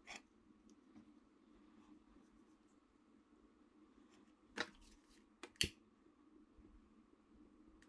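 Two sharp clicks about a second apart: the trigger of a long-reach butane utility lighter being pressed to spark it, the flame catching. Between them only faint handling of wires and heat shrink tubing.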